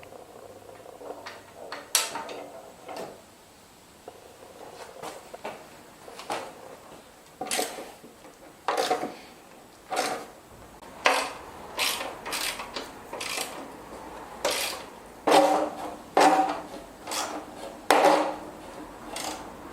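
Irregular metallic clanks, knocks and clinks of lawnmower parts and tools being handled and fitted during reassembly, some hits ringing briefly. They come more often in the second half.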